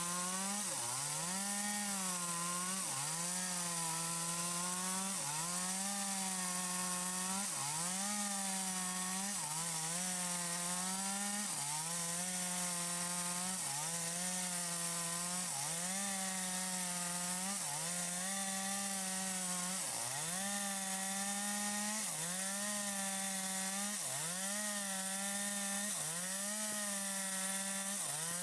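Stihl MS 250 two-stroke chainsaw with a 25-inch bar cutting through wood. The engine runs hard, and its pitch drops under load and swings back up about once a second, over and over, as the chain bites into the cut.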